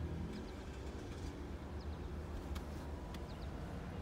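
Steady low rumble heard from inside a car, with faint short bird chirps in pairs a few times and two sharp clicks about half a second apart near the middle.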